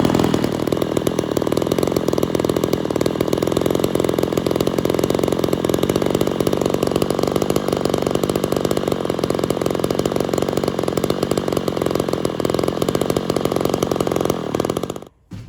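Ported Poulan 245A two-stroke chainsaw running steadily on a rich tune, then shut off near the end.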